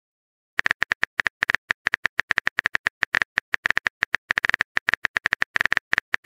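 Phone keyboard key-click sound effects, one short click per typed letter. They come in a quick, slightly uneven stream, starting about half a second in.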